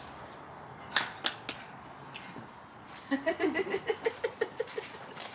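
Three sharp hand slaps in quick succession, the beat of a rock-paper-scissors count, then a burst of laughter in quick rhythmic pulses, about six a second, trailing off.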